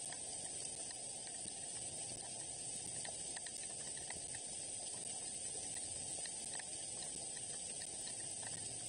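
Steady hiss of rain falling on the nest tree, with scattered faint ticks of drops.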